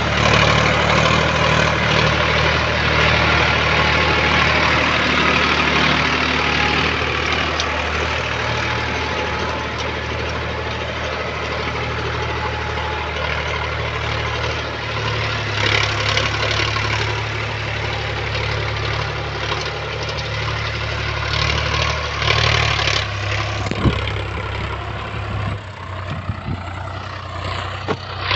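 Tractor diesel engine running steadily under load as it pulls a spring-tine cultivator through dry soil, with a few sharp knocks about three-quarters of the way through.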